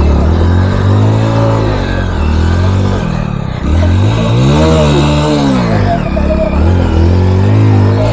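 Hero Splendor motorcycle's single-cylinder four-stroke engine revving in repeated swells, rising and falling in pitch about three times. The rider is working the bike to pull it out of a muddy, waterlogged track.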